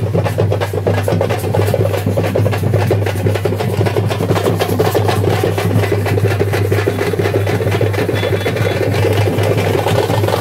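Festival procession music with fast, dense drumming and a steady low hum underneath.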